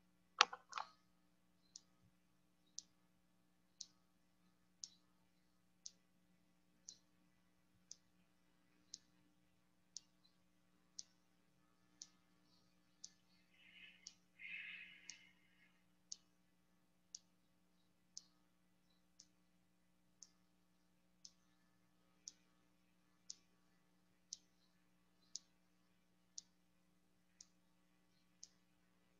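Near silence with faint, evenly spaced ticks about once a second, like a clock, over a low steady hum. A louder double click comes just after the start, and a brief hiss about halfway through.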